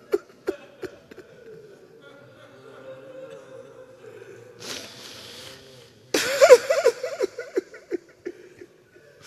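Men weeping aloud, rapid broken sobs that come in two bouts, the louder one about six seconds in, with a sharp hissing breath just before it.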